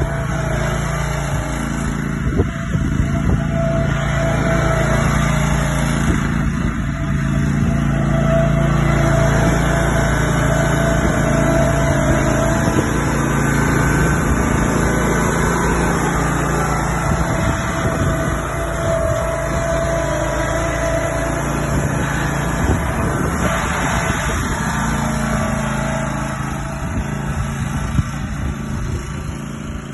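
Cub Cadet ride-on lawn mower's engine running steadily as the mower drives across the lawn, getting a little quieter over the last few seconds as it moves away.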